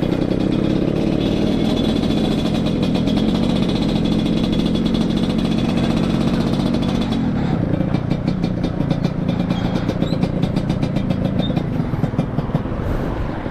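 Yamaha RX King's 135cc two-stroke single-cylinder engine running through an under-belly ('kolong') exhaust set up for the Medan-style 'ngorok' rumble. It runs steadily at first, then about halfway through drops to a lower, uneven beat of rapid exhaust pops.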